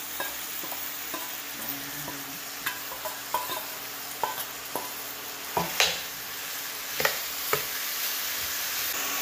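Grated coconut landing in golden-brown caramelized sugar in a stainless-steel pan, with a steady sizzle and a metal spoon knocking against the pan and bowl several times, loudest a little under six seconds in.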